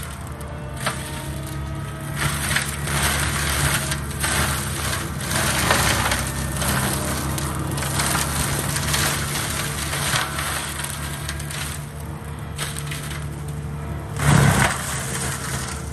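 Gyrotrac forestry mulcher head on a tracked loader grinding brush and wood, a steady engine hum under repeated crunching and splintering. A single louder crunch comes near the end.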